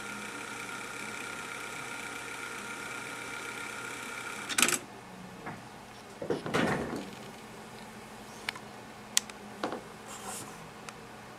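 Denon DRM-650S cassette deck fast-winding tape with a steady high mechanical whir, which ends in a loud clack about four and a half seconds in. Rubbing and handling noise follow, then a few sharp clicks of the deck's buttons and switches.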